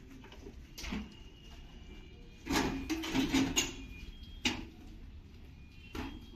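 Hard objects knocking and clattering, like tools or parts being handled: a single knock about a second in, a short run of clatter in the middle, and two more single knocks near the end.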